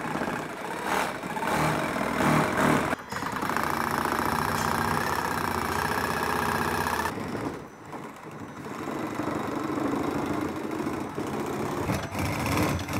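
A cordless power saw cutting through a plastic rear bumper cover, running steadily in stretches: it stops briefly about three seconds in, pauses for about a second and a half around seven seconds in, then resumes.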